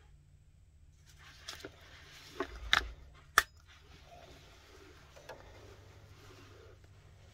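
Handling noise from a mesh baby carrier: soft rustling of the mesh fabric, with a few sharp clicks and knocks from its plastic buckle and fittings, the sharpest about three and a half seconds in.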